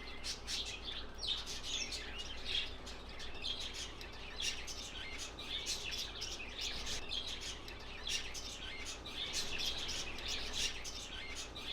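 Many birds chirping and tweeting together, a dense, continuous chorus of short high calls.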